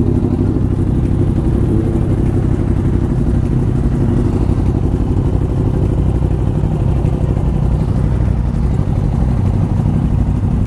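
Yamaha MT-09 motorcycle's inline-three engine running at a steady pitch while riding, with wind rush over it.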